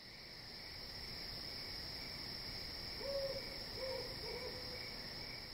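Night-time ambience: crickets chirring steadily and high, with an owl hooting three times about three seconds in.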